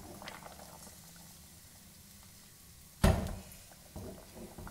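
Clay curry pot being swirled by its handle on a stovetop, with faint sounds of the hot curry inside; about three seconds in the pot knocks sharply against the cooktop, followed by two softer knocks near the end.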